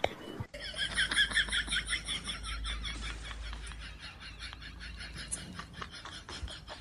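A rapid run of short, high-pitched animal chirps, about six or seven a second, loudest during the first few seconds and then fading.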